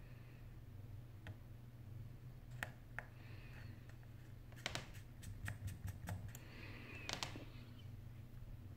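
Small sharp clicks and taps from fingers and a small tool working on the internal parts at the top of an opened iPhone 8 Plus, scattered at first, then a quick run of them in the middle and a couple more near the end. A faint steady low hum lies underneath.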